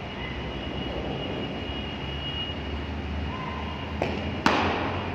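A cricket ball is taken in leather wicket-keeping gloves: a light knock, then half a second later a louder thud, over a steady background hum.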